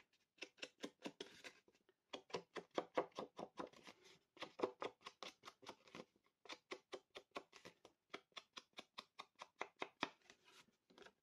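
Finger-sponge dauber dabbed quickly on an ink pad and along the edges of kraft cardstock to ink them: faint soft taps several times a second, in runs broken by short pauses.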